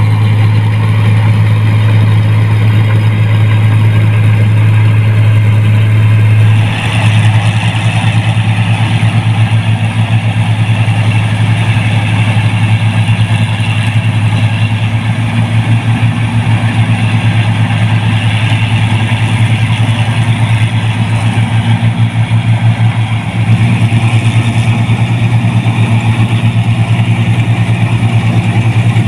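New Holland 1545 combine harvesters running steadily while harvesting rice: the engine and threshing machinery make a strong, steady low hum. The sound changes abruptly about seven seconds in and again near twenty-three seconds in, as the machines are heard from different positions.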